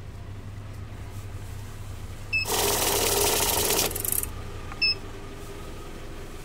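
ZSA 911 money counter running for about a second and a half as its friction rollers feed a stack of banknotes through and count them. A short electronic beep follows about a second after it stops.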